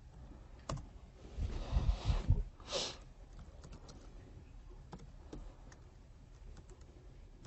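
Typing on a computer keyboard: scattered light key clicks. About one and a half seconds in there is a louder patch of low bumps and rustling, followed by a short hiss.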